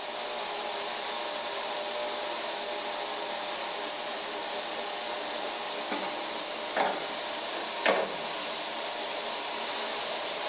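Steady hiss of a water spray rinsing the detergent off a metal part in a wire basket, with two brief squeaks around the middle.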